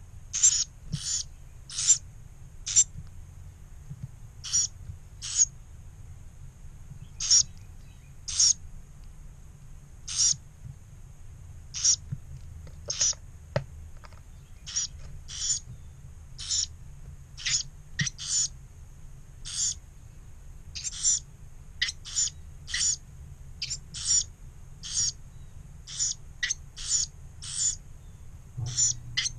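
Carolina wren fledglings giving short, high-pitched begging calls, repeated a bit more than once a second, as they are fed mealworms.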